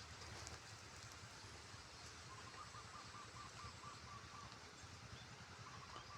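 Near silence: faint outdoor background with a distant animal call, a quick run of short, evenly spaced notes about two seconds in, heard again briefly near the end.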